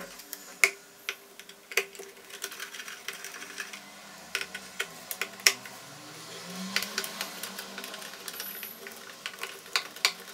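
Screwdriver working the motor-mounting screws inside a Preethi mixer grinder's plastic base: irregular small clicks and ticks with a few sharper knocks as the tool turns and taps against the screws and housing.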